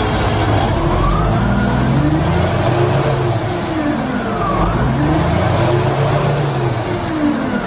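Komatsu WA450-1 wheel loader's diesel engine revved up and back down twice, its pitch rising and falling in two slow swells.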